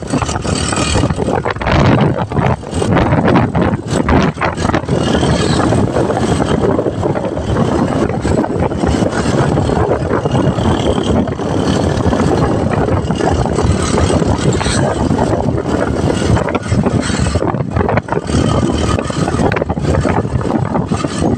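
Motorcycle tricycle (motorcycle with sidecar) engine running steadily while riding along a street, heard from the sidecar, mixed with a continuous rush of wind and road noise.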